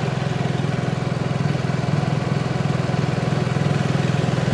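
Portable generator's small engine running at a steady, even speed.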